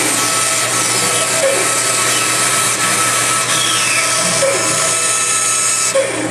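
Band saw running and cutting a curve in wood along a line of relief cuts: a steady motor hum under the blade's even hiss through the stock. The hiss thins out near the end as the cut finishes.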